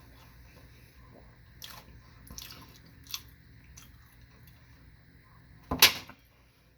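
A person chewing sushi with wet mouth clicks and smacks close to the microphone, then a single sharp, loud knock near the end.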